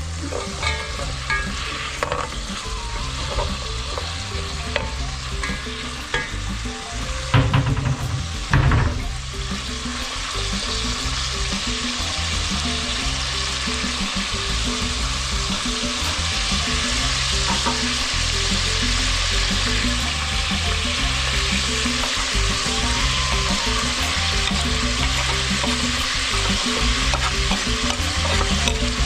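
Food frying in hot cooking oil in a pot: a steady sizzle. It grows fuller after a couple of loud knocks about eight seconds in.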